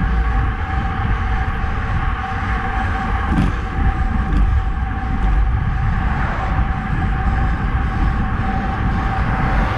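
Wind rushing over a handlebar-mounted action camera's microphone on a road bike riding at speed, with the Roval Rapide CLX64 wheels' tyres rolling on asphalt and a steady hum.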